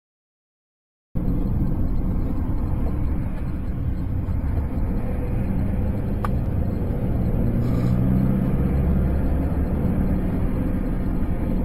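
Silence, then about a second in a vehicle driving starts up on a dashcam recording: a steady low engine and road rumble.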